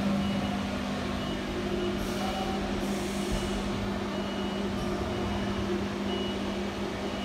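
5-axis CNC machining centre running with a steady low hum, and short high-pitched beeps that come several times at irregular intervals.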